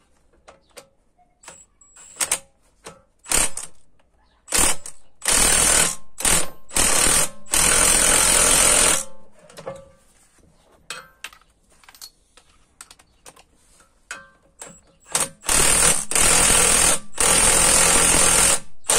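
Cordless impact wrench hammering as it drives the threaded rods of a pair of coil-spring compressors, squeezing a MacPherson strut's spring. A few short bursts come first, then two runs of several seconds each with a pause between them, and light clicks of metal handling in the gaps.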